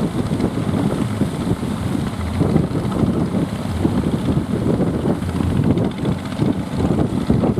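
Wind buffeting the microphone over the low, steady running of a fishing boat's engine.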